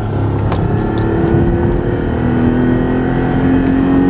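Mercedes-Benz E320 wagon engine revving hard under full-throttle acceleration, heard from inside the cabin, its pitch climbing slowly in the second half, with a sharp click about half a second in. The car is running on fuel mixed with a whole bottle of Tide laundry detergent.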